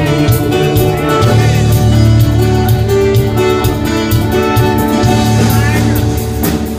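Instrumental break of a Brazilian romantic pop song: sustained keyboard or string chords over a steady beat, with a guitar.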